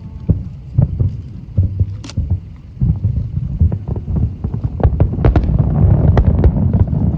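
Aerial fireworks shells bursting: a rapid, irregular series of deep booms and bangs that grows denser and louder over the last few seconds.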